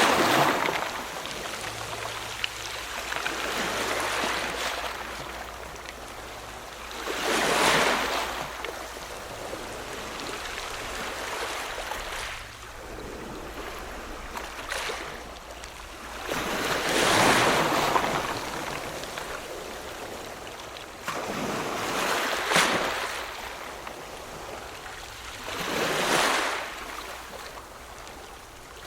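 Ocean surf: waves breaking one after another, about five surges that each swell and fade over a second or two, over a constant wash of water.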